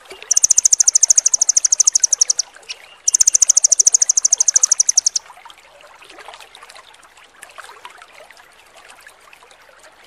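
A small songbird's rapid high-pitched rolling trill: two bursts of about two seconds each of fast, evenly repeated notes, roughly a dozen a second. After that only faint running water is heard.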